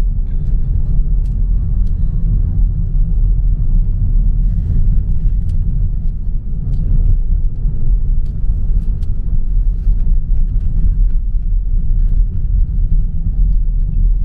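Road noise inside a moving car's cabin: a steady low rumble of the car driving along, with small faint ticks now and then.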